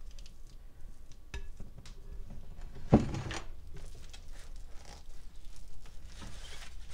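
Silicone spatula scraping thick peanut butter cream cheese filling from a glass mixing bowl and spreading it in a foil-pan pie crust: soft, irregular scraping and squishing. About three seconds in there is one sharp knock, the glass bowl being set down on the granite counter.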